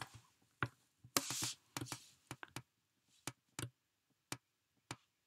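Scattered light clicks and taps from handling, with a brief rustle just after a second in.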